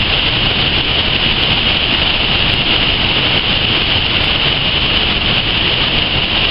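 Fast-flowing river water rushing, a loud steady hiss with no let-up.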